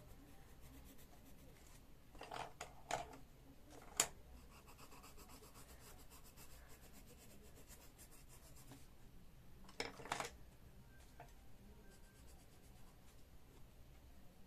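Coloured pencil scratching faintly on colouring-book paper, with a few brief louder scratches and one sharp tap about four seconds in.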